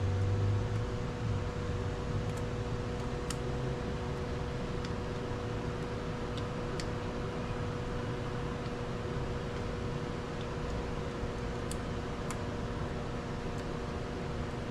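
Steady mechanical hum and hiss, with a brief low thud at the start and a handful of sharp light clicks spread through, from hand tools on metal as the steering wheel's mounting bolts are tightened.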